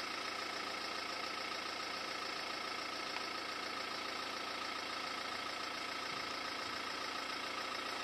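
A steady mechanical hum with faint high whining tones, unchanging in level.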